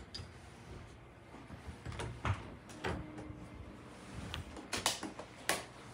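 A few light clicks and knocks from a room door being opened, spread over several seconds.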